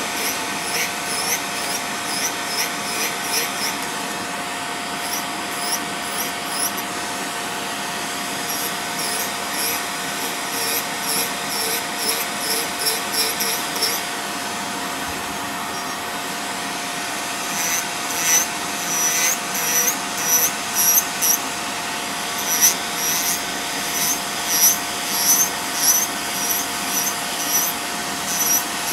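Electric nail drill running with a steady whine while its cylindrical burr grinds down a toenail thickened by fungal infection, in repeated short scraping passes. The grinding stops for a few seconds around the middle, then resumes.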